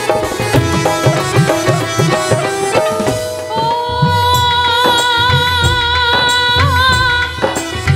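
Instrumental interlude of a live bhajan band: a quick melody over a steady drum beat, then, about three and a half seconds in, one long held note that wavers slightly near the end.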